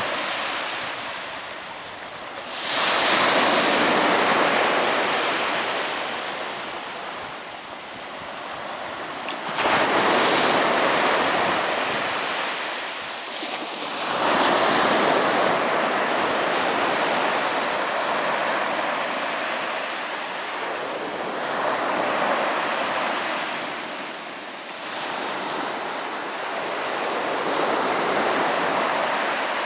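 Ocean waves breaking on a beach: a steady wash of surf that swells and ebbs as one wave after another comes in, with a sharper crash about ten seconds in.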